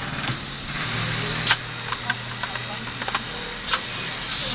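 Pneumatic pocket-creasing machine blowing compressed air in two hissing bursts of about a second each. A sharp valve click ends the first burst, and a few lighter clicks fall between the bursts, over a steady machine hum.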